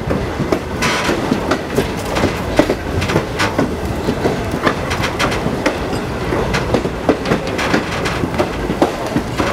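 Passenger car of a moving steam-hauled train rolling along the track, its wheels clattering steadily with many irregular sharp clicks and knocks over the rails.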